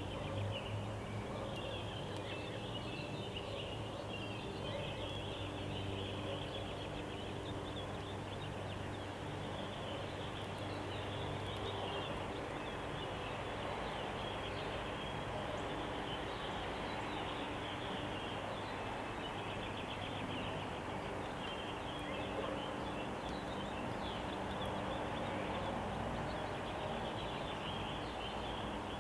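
Outdoor ambience: a steady low hum under a constant background of faint, busy chirping.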